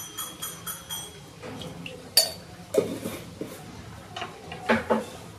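Kitchen utensils clinking and knocking against a pot: a quick run of light ticks, about three or four a second, in the first second, then several separate sharper knocks and clinks.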